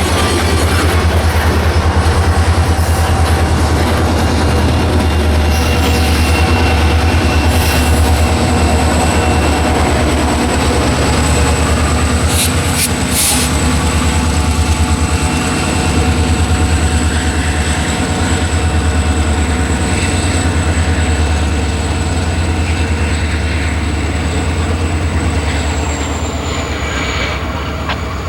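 Diesel freight locomotive running close by with a heavy, steady low engine rumble and a thin high whine over it, the whine dropping slightly in pitch near the end. A few sharp clicks come about halfway through.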